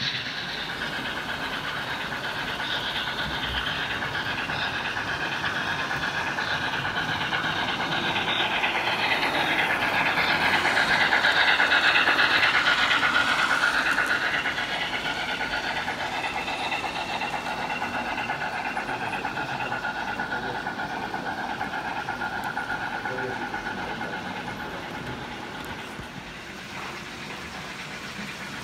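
H0-scale model steam locomotive (Märklin SBB C5/6) with freight wagons running on the layout's track, its wheels and motor whirring and clattering on the rails. The sound grows louder to a peak about twelve seconds in as the train passes closest, then fades.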